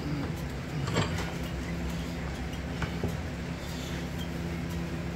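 Steady low workshop hum, with a few light metallic clicks and knocks about one second and about three seconds in as tools and a brake caliper are handled at the vise.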